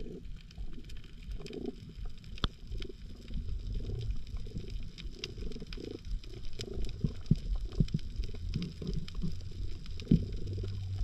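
Underwater sound as a diver swims along the seabed: an irregular, muffled low rumble of water moving past the camera, with scattered sharp clicks.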